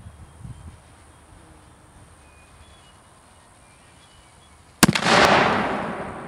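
A black-powder Dahlgren boat howitzer (1.75-inch bore) firing a canister round: a single sharp blast about five seconds in, with a second crack a fraction of a second later, then a loud echo dying away over a second or two.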